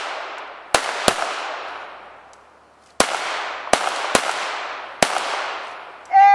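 .22 calibre pistols firing in a timed series: six sharp shots at uneven intervals, each followed by a long echo that dies away over a second or more. Right at the end a loud steady pitched tone begins.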